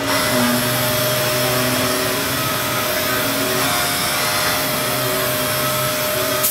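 Robot-held random orbital sander running over a raised-panel cabinet door, its dust-extraction hose drawing air, giving a steady whir and hiss. A sharp click comes right at the end.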